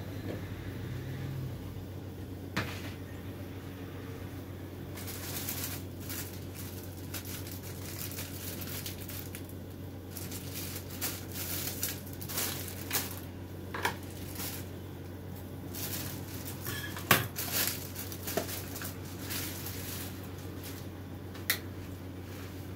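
Rustling and scattered light knocks and clicks of things being handled, with two sharper knocks near the end, over a steady low hum.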